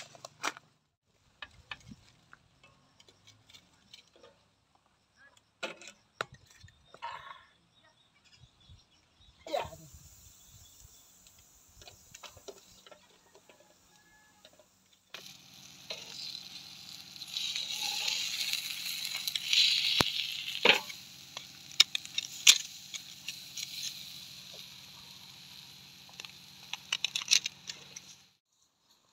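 Fish head grilling on a wire grill over an open fire. First come scattered light clinks and knocks as the fish and grill are handled. About halfway in, a steady sizzle with sharp crackles takes over and stops abruptly near the end.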